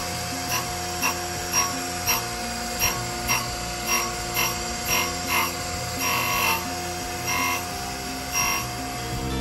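Brown & Sharpe surface grinder running with a steady whine while its wheel grinds a small round steel part for a differential rebuild. Short gritty rasps come about twice a second, one each time the wheel passes over the part.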